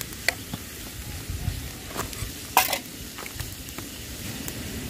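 Eel meat frying in a small metal pan: a steady low sizzle, with the clicks and scrapes of stirring in the pan. The sharpest knock comes about two and a half seconds in.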